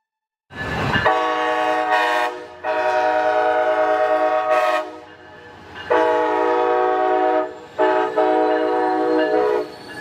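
Train air horn sounding a chord in a series of long blasts, each about two seconds, with short breaks between them.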